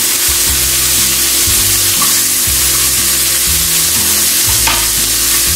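Bok choy, ginger and carrot sizzling in a hot frying pan, in the fat left from cooking chicken. A steady hiss throughout.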